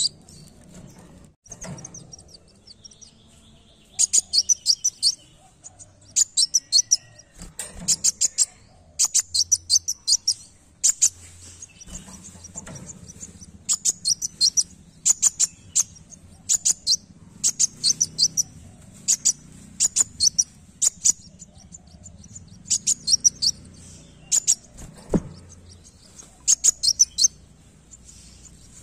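A caged sunbird, of the type kept as 'kolibri wulung', singing: clusters of fast, very high, sharp chirps, each about a second long and repeated every second or two, with a few brief pauses.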